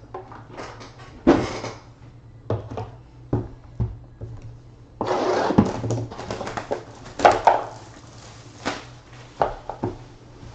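Cardboard boxes and plastic packaging being handled on a table: scattered knocks and clicks, with a longer stretch of rustling and tearing about five seconds in.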